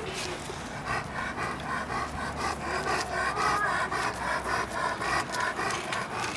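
A dog panting quickly and rhythmically, about four to five breaths a second.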